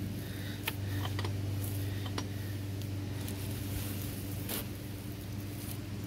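Gloved hands rummaging through loose potting soil in a wheelbarrow while digging for potatoes, with a few soft clicks, over a steady low hum.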